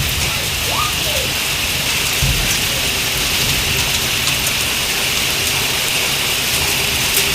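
Heavy rain falling steadily in a thunderstorm, a constant hiss with scattered sharp drops ticking, and a brief low rumble about two seconds in.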